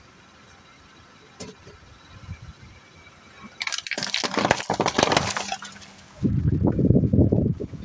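Aluminium drink cans being crushed one after another under a car tyre: a dense run of crackling, crunching and hissing spray as the cans split open, starting about three and a half seconds in and lasting about two and a half seconds. A loud low rumbling noise takes over near the end.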